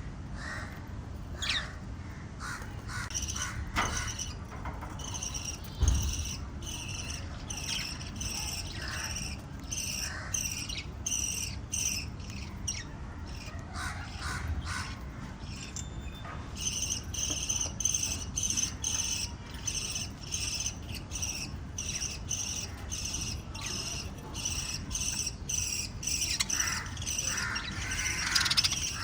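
Lovebirds chirping: many short high chirps, one of them repeating about twice a second through most of the stretch, over a low steady rumble, with a brief thump about six seconds in.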